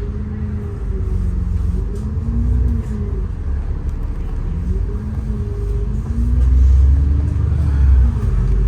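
City bus heard from inside the passenger cabin: a steady low drivetrain rumble, with a hum over it that rises and falls in pitch several times as the bus changes speed. The rumble grows louder about two-thirds of the way through.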